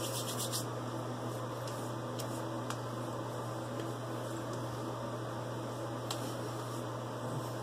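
A steady low hum with a faint hiss runs throughout. A few faint soft clicks and pats come from hands rubbing and patting aftershave into the face and neck.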